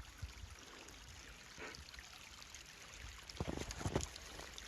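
Faint, steady trickle of a small forest stream running under ice and snow. A few soft footsteps in the snow come in near the end.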